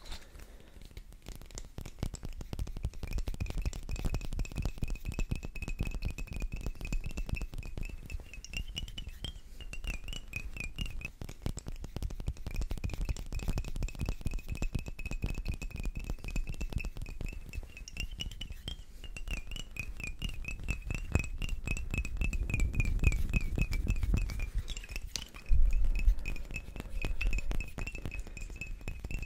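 Rapid finger tapping on small glass bottles, one a corked flask holding liquid, giving quick light clinks over a steady high ringing tone. There is a louder bump near the end.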